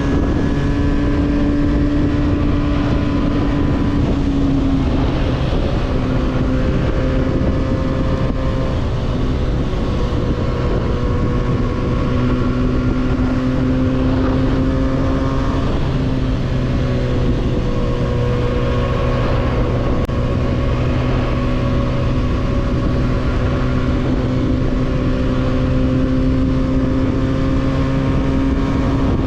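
300cc motorcycle engine with a 302s exhaust, running at a steady cruising pace with small dips and rises in pitch, heard on board over wind and road noise.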